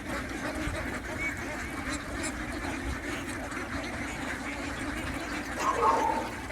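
A group of ducks quacking and chattering steadily, with one louder call near the end.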